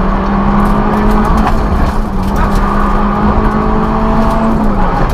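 Citroën Saxo N2 rally car's four-cylinder engine heard from inside the cockpit, running hard at high revs on the stage, its pitch climbing slowly and then dropping near the end. Short clicks and rattles sound over it.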